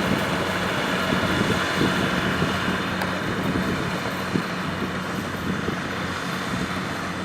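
Kubota rice combine harvester running steadily: engine and threshing machinery making a continuous mechanical drone with a steady low hum.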